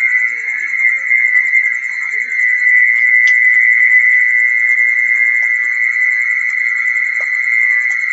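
Recorded mole cricket calling song blaring from a horn loudspeaker used as a lure to draw mole crickets to the light: a loud, steady, high-pitched insect call that does not break.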